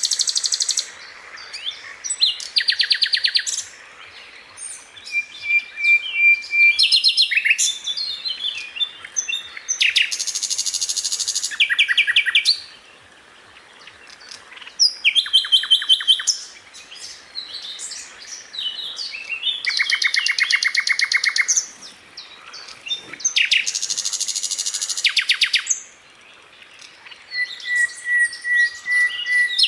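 Sikatan londo flycatcher singing: loud bursts of very fast rolling trills, each a second or two long, alternating with scattered short chirps and a couple of long, level whistled notes.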